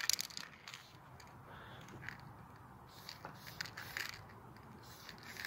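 Aerosol spray-paint can: a spray of paint cuts off right at the start, followed by a few short, faint spurts of spray over a quiet background.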